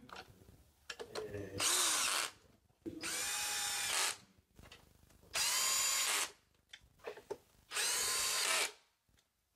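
Cordless electric screwdriver driving screws in four short runs of about a second each, the motor spinning up and winding down each time, with small clicks between runs.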